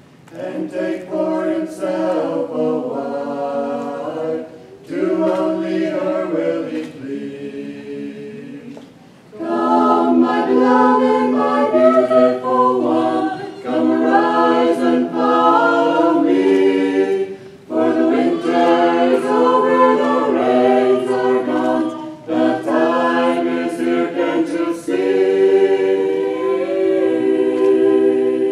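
Small mixed vocal ensemble of men and women singing a cappella in parts. Softer for the first nine seconds, then fuller and louder from about nine seconds in.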